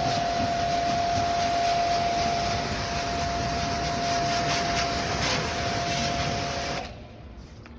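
A small motor-driven machine running with a steady whine over a loud hiss, then shut off suddenly about seven seconds in.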